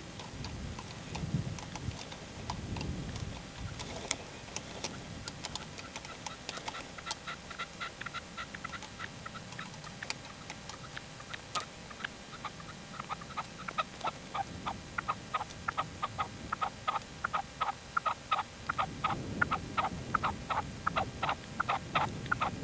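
Red-legged partridge calling: a run of short, clipped chuck notes, scattered at first and then coming steadily at about three or four a second. A low rumble sits under it near the start and again near the end.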